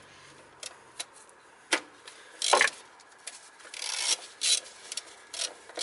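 Ratchet wrench turning a socket on a throttle body bolt as it is tightened: scattered clicks and short rasping runs of the ratchet pawl, the longest about two and a half and four seconds in.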